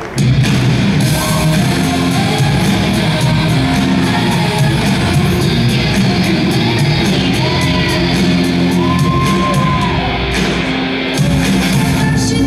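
Upbeat dance music with shouted and sung vocals and a steady beat, cutting in sharply after a brief dip in the mix, echoing in a large arena.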